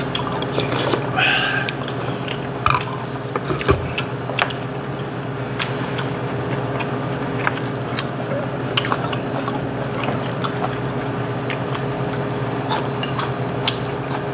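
Eating at a table: chewing and slurping soup, with spoons and chopsticks clicking against bowls many times, over a steady low hum.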